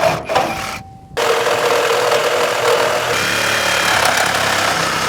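Sawzall reciprocating saw with a carbide blade cutting through a steel bracket: a dense, rasping noise that stops for a moment about a second in and then starts again.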